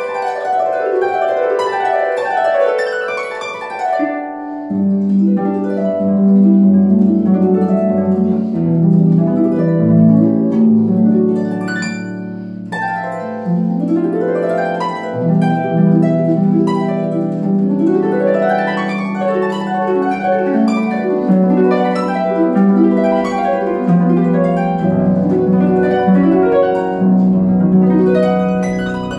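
Concert harp played solo: fast runs of plucked notes over ringing bass notes, with rising sweeps up the strings about halfway through and again a few seconds later.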